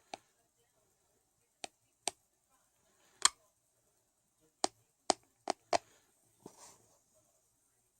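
Sleep bruxism: teeth grinding and clenching, heard as sharp, irregular clicks and snaps of teeth against teeth, about eight in all, bunched closer together past the middle. A softer, longer grating sound follows near the end.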